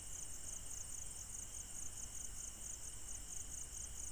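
Crickets chirping in a steady, evenly pulsing trill, with a faint low rumble beneath.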